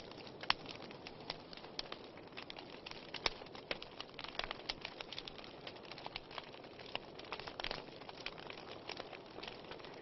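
Wood fire crackling: irregular sharp pops and snaps, several a second, from burning logs and glowing embers over a soft steady hiss.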